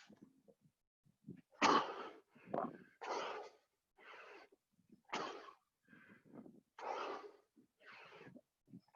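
A person breathing hard while doing burpees: a short, noisy breath in or out roughly once a second.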